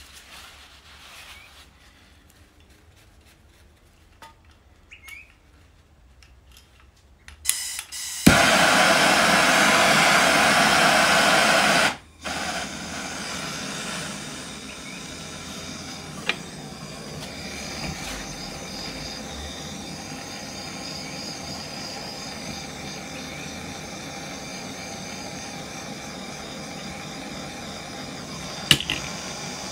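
Bernzomatic handheld gas torch being lit about eight seconds in after a few clicks of its igniter, then burning with a loud, steady hiss while it heats the chainsaw crankcase. The hiss drops out for a moment about four seconds later, then carries on steadily at a lower level.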